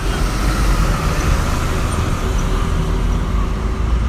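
Steady low rumble of road traffic, with no single sharp event standing out.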